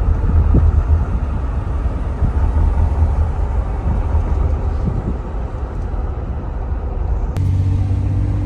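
Loud, steady low rumbling noise that starts abruptly. About seven seconds in it changes to a steadier, even hum.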